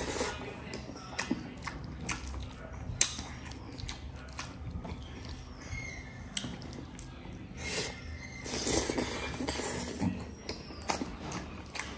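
A person eating mutton leg with rice close to the microphone: chewing and mouth smacks with many scattered sharp clicks, and a longer noisy stretch of wet eating noise near the start and again about nine seconds in.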